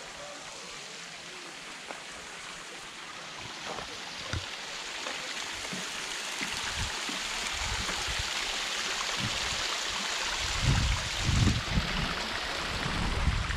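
Water trickling and splashing down a small rockery waterfall, a steady hiss that grows louder partway through. A low rumble comes in over it in the last few seconds.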